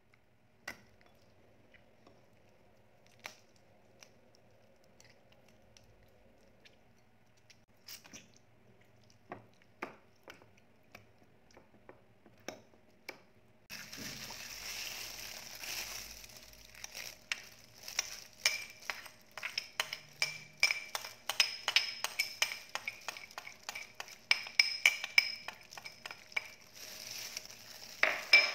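Kitchen handling sounds around a ceramic dish of raw chicken. The first half has a few scattered light taps and clicks of a metal utensil against the dish. From about halfway there is a busier stretch of rapid clicks and crinkles as a hand in a plastic food glove works the chicken.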